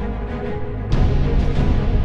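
Background music with sustained low tones; a loud cymbal-like crash and fuller bass come in about a second in.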